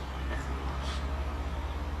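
Steady low rumble with a faint hiss, the background of the recording, while the wind chimes are not ringing.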